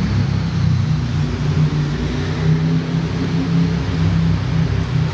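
Loud, steady hum of a motor vehicle's engine running, with a hiss over it.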